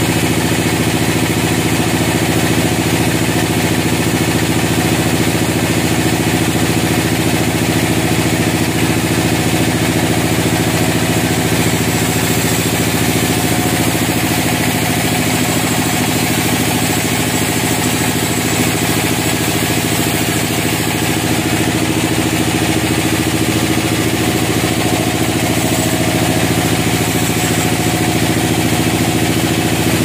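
Large band sawmill running and cutting lengthwise through a pine log: a steady, loud machine drone from the saw's drive under the hiss of the blade in the wood, unchanged throughout.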